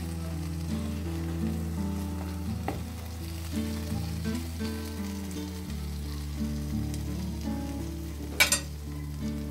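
Zucchini, tomato and egg omelette sizzling as it fries in oil in a pan, with a plastic spatula working underneath it. Near the end comes one sharp clack, the spatula knocking against the pan.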